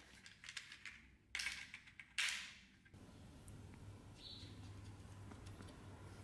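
Faint handling noises from hand work: a few short rustling, scraping bursts cut one after another in the first three seconds, then a low steady hum with light ticks.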